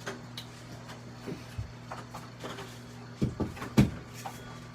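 A few short knocks and clunks of kitchen handling, like a cupboard or refrigerator door and an egg carton being moved, with the loudest pair about three to four seconds in. A low steady hum runs underneath.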